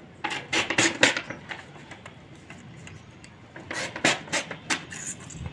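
Chart paper being torn along the edge of a steel ruler, with rustling of the sheet: one spell of tearing in the first second and a half and another about four seconds in.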